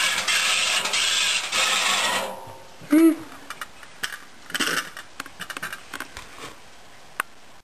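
Hands working on a washing machine: steady scraping and rubbing for about two seconds, then a short squeak and scattered light metallic clicks and clinks of parts being handled.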